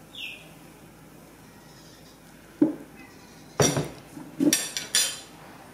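Ceramic bowls and utensils being handled on a table: a sharp knock about two and a half seconds in, then a quick run of clinks that ring briefly. A short high squeak just after the start.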